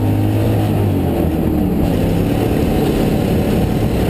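Ford Mustang GTS rally car's engine running hard, heard from inside the cabin.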